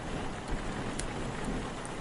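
Steady rain on a surface with a low wind rumble beneath it, and a couple of sharp ticks, one about a second in and another near the end.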